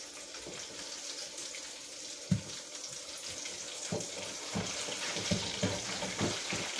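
Hot oil sizzling steadily in an electric deep fryer with battered corn and potatoes just dropped in. A sharp knock comes about two seconds in, and a run of light metal knocks near the end as the fryer basket is handled.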